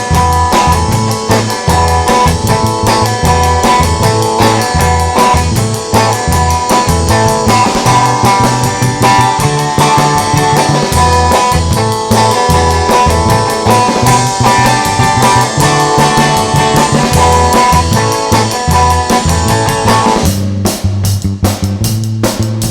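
Instrumental band music with guitar, bass guitar and drum kit playing a steady groove. Near the end the guitar drops out, leaving bass and drums.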